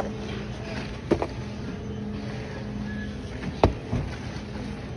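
A few sharp clicks and knocks of plastic food packaging handled on a supermarket checkout counter, the loudest about three and a half seconds in, over a steady low machinery hum.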